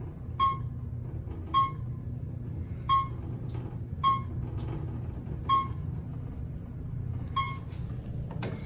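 A short electronic beep with a brief ring sounds six times, about every second and a quarter, over a steady low machine hum in the elevator area; a knock comes near the end.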